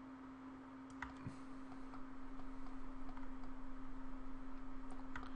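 Steady low hum over faint hiss, with a few soft computer mouse clicks about a second in and again near the end.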